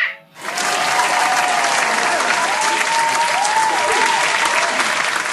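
Crowd clapping and cheering, starting abruptly about half a second in and holding steady.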